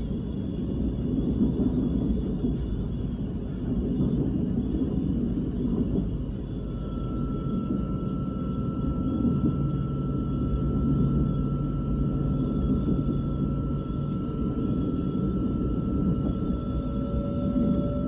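KTX-Eum electric high-speed train running at speed, heard from inside the passenger cabin: a steady low rumble, with a thin steady high whine coming in about a third of the way through and staying to the end.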